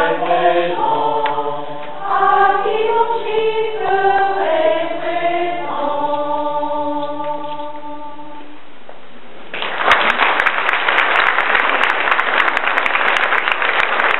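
Mixed choir of men and women singing a cappella in chords, ending on a long held chord that dies away about eight and a half seconds in. About a second later the audience bursts into loud applause.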